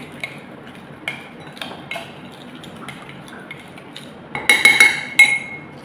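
A metal spoon stirring sauce in a white ceramic bowl, scraping and clicking against the sides. About four and a half seconds in comes a quick run of louder clinks of spoon on bowl that ring briefly.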